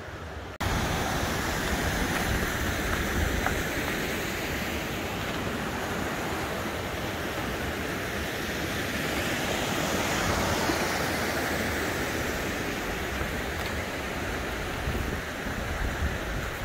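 Wind buffeting the microphone with a heavy, uneven rumble over a steady rushing hiss. It cuts in abruptly about half a second in.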